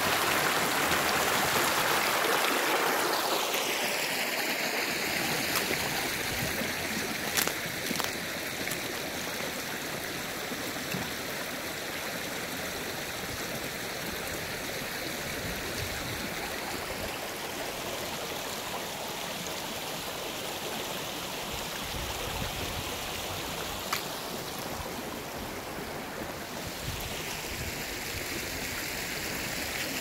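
Mountain stream rushing over rocks in shallow rapids, loudest in the first few seconds and then settling to a steadier, softer flow.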